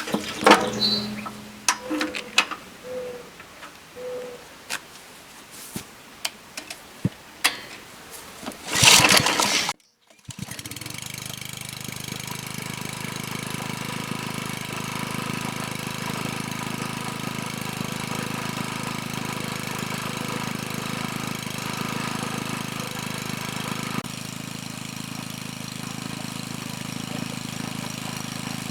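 Log splitter's small engine, its drive belt newly replaced: scattered clicks and knocks, then a loud rasp of about a second near the one-third mark, and after a short break the engine running steadily at an even speed.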